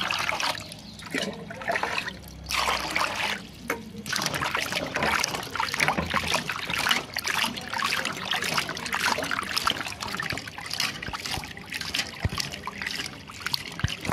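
Potatoes being washed by hand in water to get the sand off them: continuous splashing and sloshing, with many short clatters and knocks.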